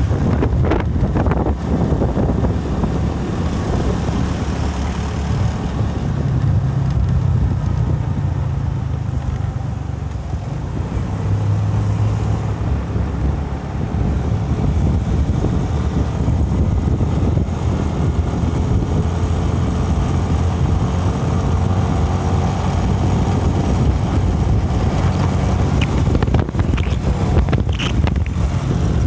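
Steady rumble of riding a motorcycle in traffic: wind buffeting the phone's microphone over the motorbike's running engine and passing cars.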